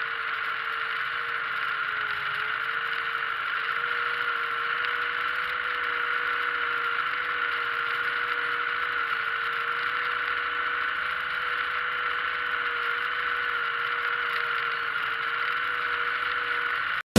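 Tractor engine running steadily, heard from inside the cab, with a constant droning tone.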